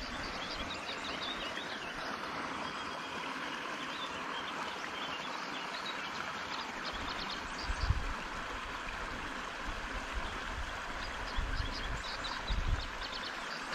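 Steady rush of water pouring from a small outflow into a creek. From about seven seconds in, low rumbles and a few bumps come and go under it.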